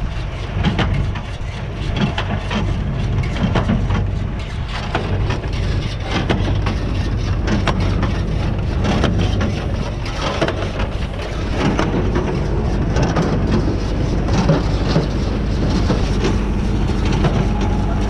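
Tractor engine running steadily under load while a New Holland 68 small square baler works behind it, its mechanism clattering with many irregular knocks and clicks as it packs hay into bales.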